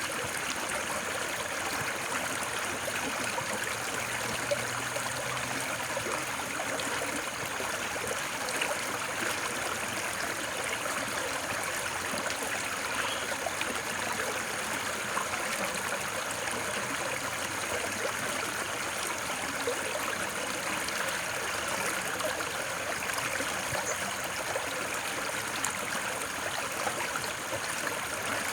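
Running water, a steady, unbroken rush like a small stream.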